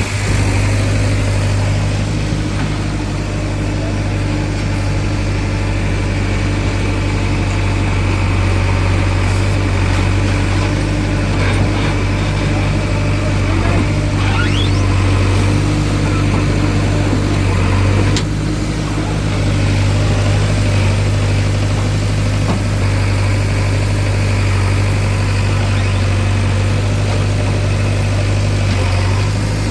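Diesel engine of a JCB 3DX backhoe loader running steadily at a constant engine speed.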